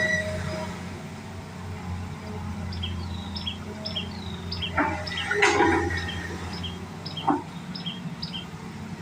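Hitachi Zaxis 210 excavator's diesel engine running steadily, with a burst of metallic clanking and scraping about five seconds in and a single knock a couple of seconds later. Short high chirps repeat from about three seconds in.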